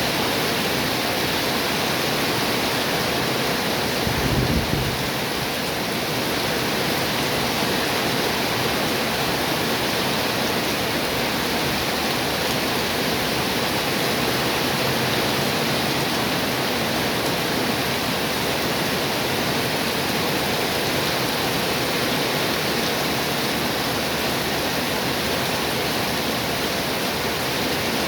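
Heavy rain falling in a steady, even downpour. About four seconds in, a brief low rumble rises for under a second.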